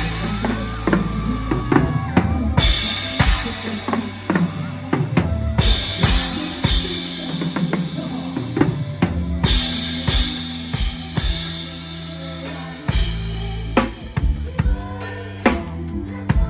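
Live mor lam band music with the drum kit up front: kick drum, snare and cymbal crashes every few seconds over a steady bass line.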